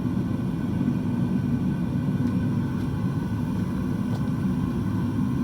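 Homemade metal-melting furnace on a test burn, its burner flame whipping around the crucible: a steady, even low rumble.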